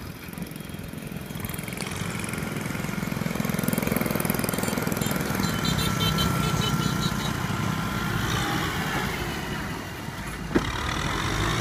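Kubota M6040SU tractor's diesel engine running steadily under load as its front blade pushes dirt, growing louder a few seconds in. A single sharp click near the end.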